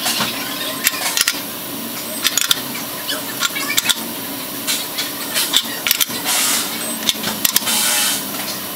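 Snap-on digital torque wrench's ratchet head clicking as large bolts are tightened to about 200 ft-lb. Single sharp clicks come irregularly, with two short runs of rapid ratcheting near the end.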